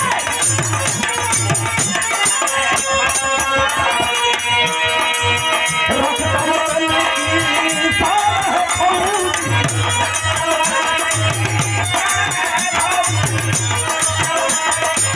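Instrumental interlude of Bhojpuri birha folk music: a steady repeating drum beat under dense jingling hand percussion and a wavering melody line.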